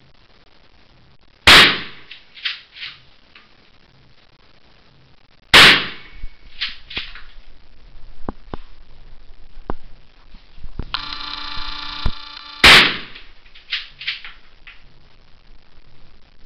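Kalashnikov (AK-47) rifle firing three single 7.62×39 mm shots, about four and then seven seconds apart. Each is a sharp, very loud crack followed by fainter echoes about a second later.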